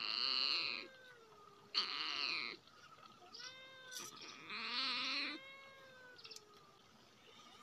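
Animal calls: three loud, drawn-out cries, the last one wavering, with fainter gliding calls between them.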